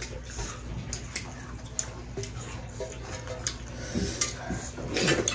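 Eating sounds from people eating by hand off stainless steel plates: scattered wet mouth clicks and smacks from chewing, with fingers mixing and scraping food against the metal. A couple of brief low hums near the end.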